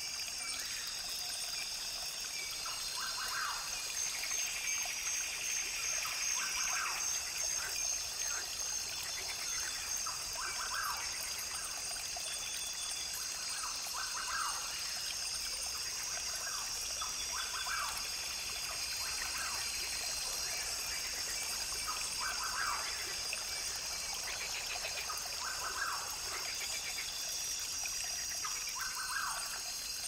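Rainforest ambience: a brook trickling steadily, with birds calling now and then over a steady high-pitched hum.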